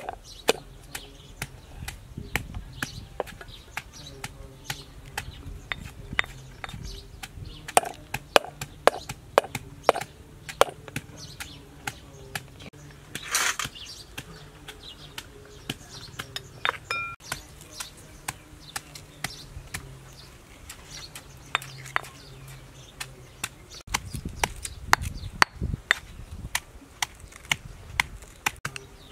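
Repeated sharp knocks of a cleaver chopping on a wooden cutting board and a pestle pounding a herb paste in a stone mortar, some in quick regular runs.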